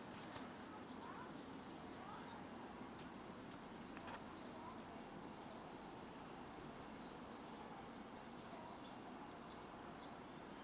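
Faint outdoor ambience with a few faint, brief, high-pitched bird chirps scattered through it, and one soft click about four seconds in.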